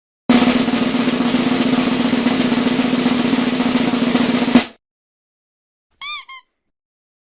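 Snare drum roll sound effect lasting about four seconds and ending in a single sharp hit. About a second and a half later comes a short, high two-part chirp.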